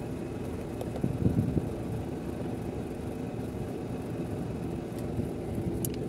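Steady low hum and rumble of running air-conditioning machinery, with a few light clicks near the end.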